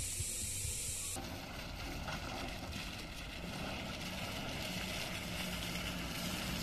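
White Maruti Gypsy jeeps driving along a dirt track with their engines running in a steady low hum, which becomes more distinct about halfway through as they come closer. Before that, a high steady hiss cuts off suddenly about a second in.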